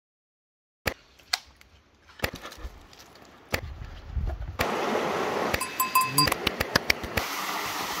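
Quick-cut snatches of outdoor sound, each cut marked by a sharp click. From about four and a half seconds in, a steady rushing of stream water takes over, with a few short high tones about six seconds in.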